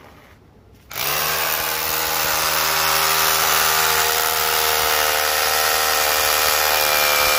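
Makita DHR171 18V cordless rotary hammer drilling into concrete, starting about a second in and then running steadily at full speed.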